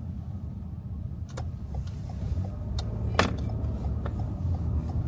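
Steady low rumble of a car's engine and road noise heard from inside the cabin while driving. A few sharp clicks sound, the loudest about three seconds in, and faint regular ticking runs through the second half.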